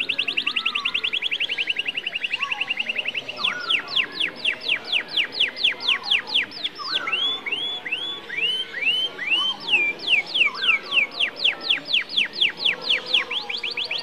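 Domestic canary singing a long rolling song of trills. It opens with a fast trill of quick down-sweeping notes, slows to longer sweeping notes, turns to a short series of rising hooked notes past the middle, then speeds up into rapid trills again near the end.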